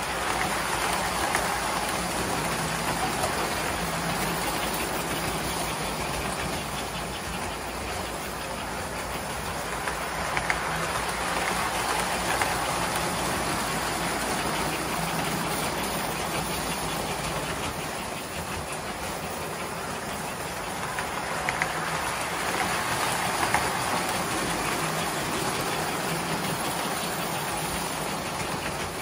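Vintage tinplate toy trains running on three-rail track: electric motors whirring and metal wheels rumbling and clicking over the rail joints. The sound swells and eases as trains pass close by, with small clicks here and there.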